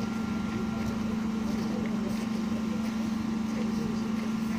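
Steady low machine hum at one even pitch, unchanging throughout.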